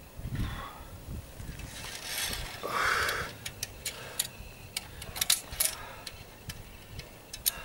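Metal climbing gear, carabiners and other hardware, clicking and clinking in a quick run of sharp separate clicks over the second half, after a short rustling scrape about two to three seconds in.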